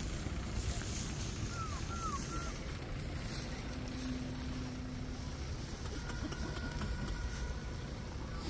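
Steady low rumble of wind buffeting the phone's microphone, with a few faint short chirps about two seconds in.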